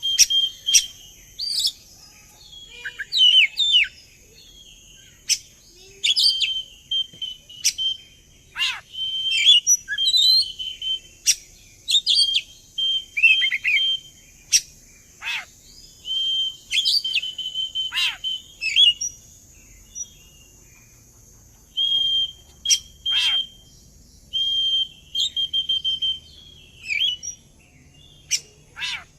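Oriental magpie-robin (kacer) singing in loud, varied phrases broken by short pauses: held whistled notes, sharp falling sweeps and quick twittering trills. This is a 'pancingan' song, used to spur another magpie-robin to sing back.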